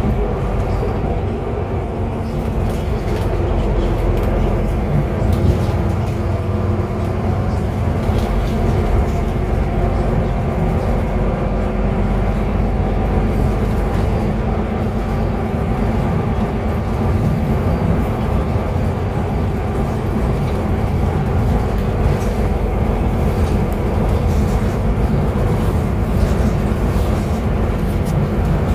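Solaris Urbino 12 III city bus driving along, heard from inside near the front: a steady engine and drivetrain hum with several held tones over low road rumble, and a few faint rattles.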